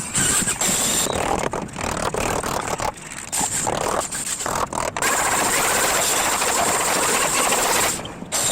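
Electric woodworking power tool working wood, with a steady high motor whine. It comes in short broken stretches at first, then runs continuously from about five seconds in.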